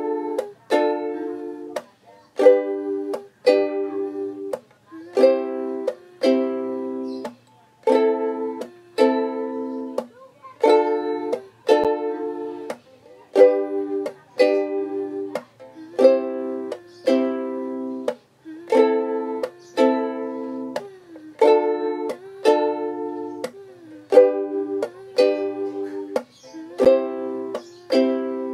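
Ukulele strummed in a steady rhythm through the chords Dm, G, C and Am, with brief stops every few seconds.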